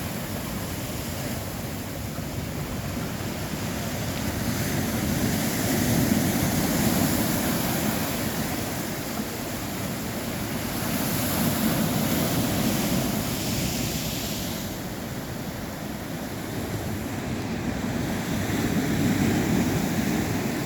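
Sea waves breaking on a beach: a steady wash of surf that swells and ebbs three times as successive waves come in.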